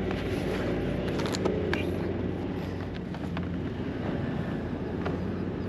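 A steady low motor drone, with a few scattered sharp clicks and taps over it.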